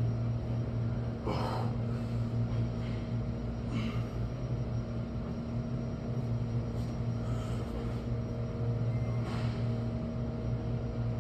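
A steady low hum of room machinery, with a few short breaths: one about a second in, one near four seconds and one near nine seconds.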